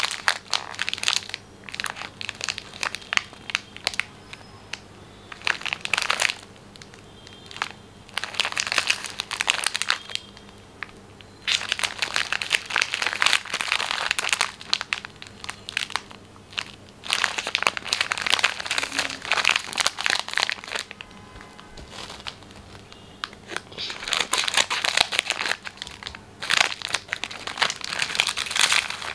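Plastic biscuit wrapper crinkling as it is squeezed and turned in the hands. It comes in bursts of one to three seconds with short pauses between.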